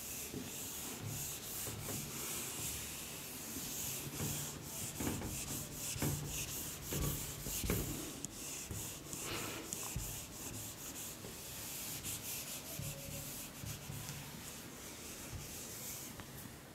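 Whiteboard duster rubbing across a whiteboard in quick, repeated back-and-forth strokes as the board is wiped clean.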